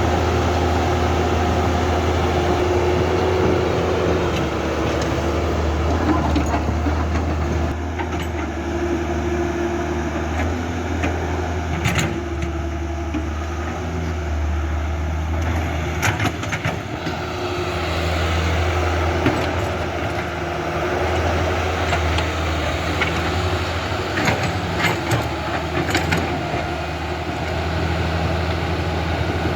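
Radio-controlled construction models running, making a steady low mechanical drone with a few sharp knocks.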